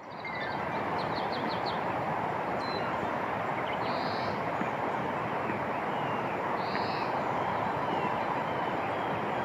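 Birds calling outdoors over a loud, steady rushing noise: a few quick chirps at first, then a short call repeated about every three seconds.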